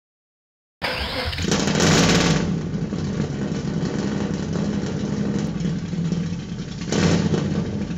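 A motorcycle engine comes in suddenly about a second in, revs up briefly, settles into a steady idle, and revs again near the end before fading out.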